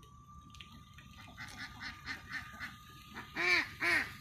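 A flock of ducks quacking: a run of short quacks, faint at first, growing louder, with two loud quacks near the end.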